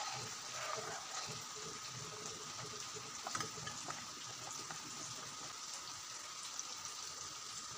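Thick, fully cooked moong dal with jackfruit seeds simmering faintly in the pot on a gas flame, with a few light clicks about three seconds in.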